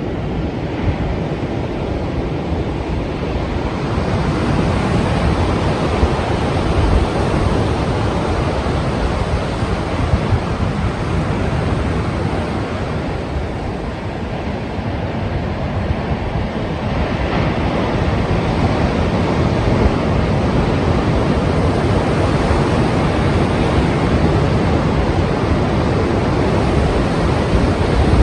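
Ocean surf: strong waves breaking continuously, the noise swelling and easing slowly over several seconds.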